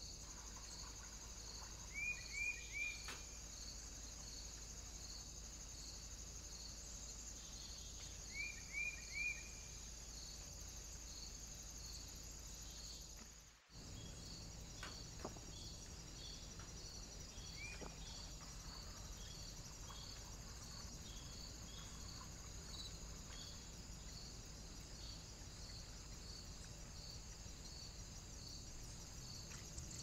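Crickets chirring steadily in a regular pulse, with a small bird giving two quick runs of three short chirps, about two and eight seconds in. The sound drops out briefly near the middle.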